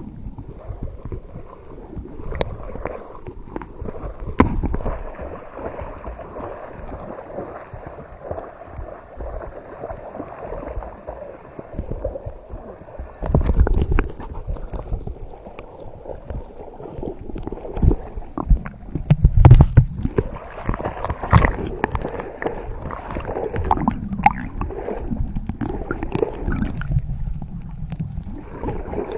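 Seawater sloshing and gurgling around a camera bobbing half-submerged at the surface, in uneven surges and splashes. The sound is muffled at first and turns clearer and splashier about halfway through.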